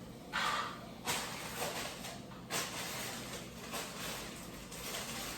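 Close-miked chewing and wet mouth sounds of someone eating a birria taco dipped in consommé, coming as irregular short smacks.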